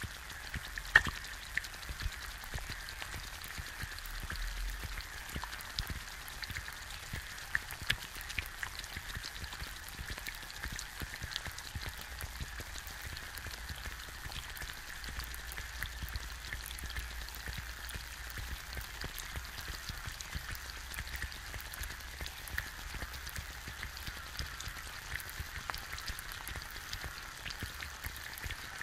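An egg frying in a pan, heard up close: a steady sizzle with a dense scatter of small crackles and pops as bubbles burst in the white, and one sharper pop about a second in.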